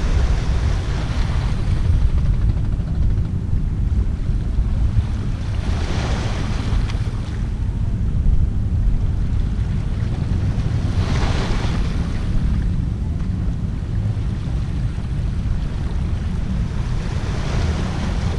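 Small waves washing up onto a sandy shore, four times, each swelling and fading over a second or two, about every five to six seconds. Under them runs a steady low rumble of wind on the microphone.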